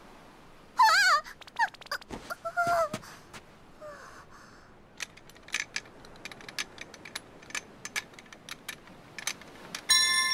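Cartoon sound effects: a small creature's high, wavering squeaky cries in the first few seconds, then a run of irregular light clicks, and near the end a bright chime-like tone with several ringing pitches at once.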